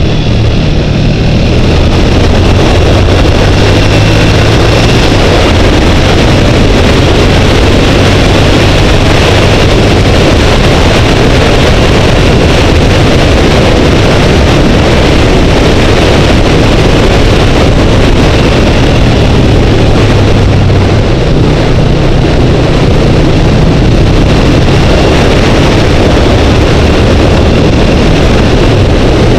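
Motorcycle engine running at road speed under loud, steady wind rush over a helmet-mounted camera, with the low engine note shifting a little now and then.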